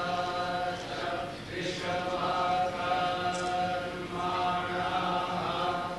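Vedic pundits chanting together in long phrases on held, level pitches, with short breaks between phrases.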